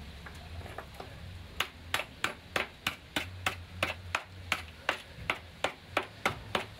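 A stone knocking repeatedly on a rusted, holed steel water pipe, about three sharp knocks a second, beginning about a second and a half in. The pipe is corroded through, the cause of the house having no water.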